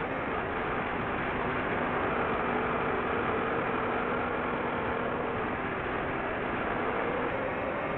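DJI FPV drone's motors and propellers whirring steadily in flight, heard as a constant rushing hum with a faint wavering motor tone.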